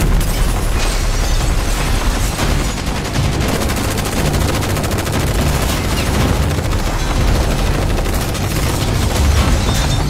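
A fusillade of automatic rifle fire from several guns at once: rapid shots packed so close together that they run into one unbroken volley.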